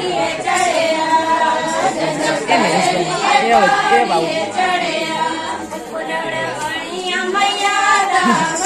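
A group of women singing a Himachali folk song together in chorus, several voices holding and bending long sung lines.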